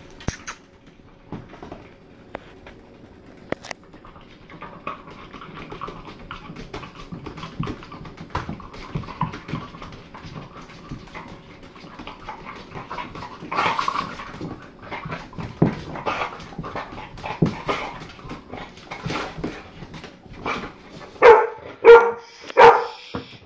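An Australian Shepherd convulsing in a grand mal seizure: its legs paddle and its claws scrape and tap on the tile floor, with heavy breathing. Near the end a dog barks loudly three times.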